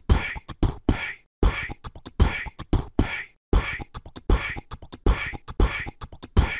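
Beatboxed rhythm: vocal percussion of deep kick-like thumps with sharper clicks and hisses between them, in a steady beat.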